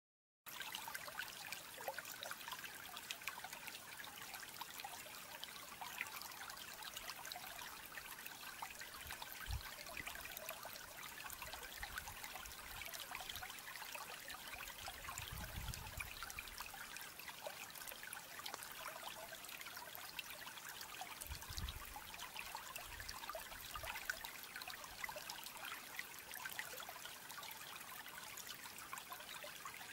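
Steady, faint trickling, water-like background noise with scattered small ticks. Soft low thumps come about a third of the way in, at the middle, and about two-thirds of the way in.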